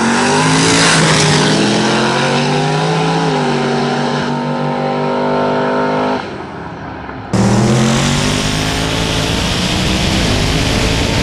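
Street drag cars launching and accelerating hard. Their V8 engines climb in pitch, with a drop at an upshift about three seconds in. The sound falls away abruptly about six seconds in, then comes back loud about a second later with an engine again revving up through its gears, heard close.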